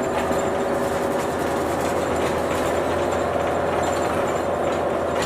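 Inside a city bus on the move: the steady hum of the diesel engine mixed with road and cabin noise.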